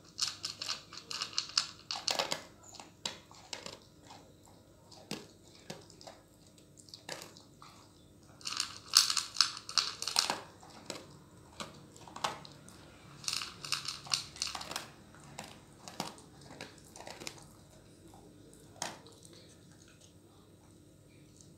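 A dog crunching dry kibble from a bowl, in bursts of rapid chewing with single crunches and clicks between. The chewing stops near the end.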